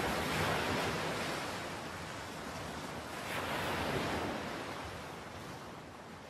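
Hurricane winds and driving rain: a dense rush of noise that swells at the start and again about three seconds in, then eases toward the end.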